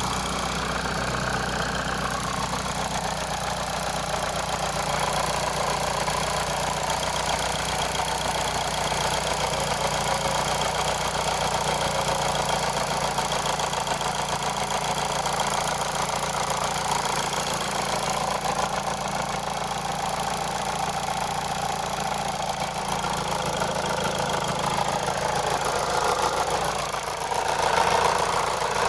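Mitsubishi 4B11T 2.0-litre turbocharged four-cylinder engine idling steadily with a knock whose source the owner cannot locate. It gets briefly louder near the end.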